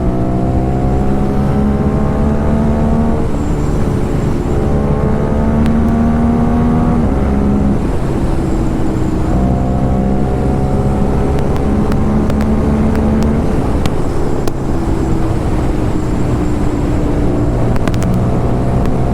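Aprilia RS 457 parallel-twin with an SC Project full-system exhaust, ridden under way. The engine pitch climbs through each gear and drops at each shift, several times over, and eases off for a while in the middle. A few sharp clicks are heard, most of them near the end.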